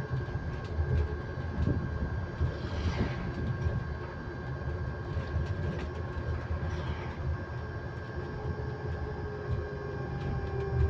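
Electric bus on the move: a steady high whine held at one constant pitch over the low rumble of the ride, with scattered small rattles and clicks.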